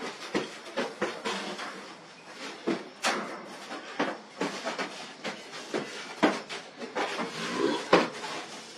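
Irregular knocks and rattles of a wire-mesh cage panel over a breathy hiss, as a tiger moves about and pushes against it.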